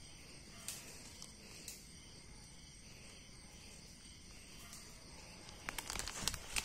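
Night insects, crickets, chirping steadily at a high pitch. Dry leaf litter crackles and rustles a few times as the mushrooms are pulled up by hand, with a louder run of crackles near the end.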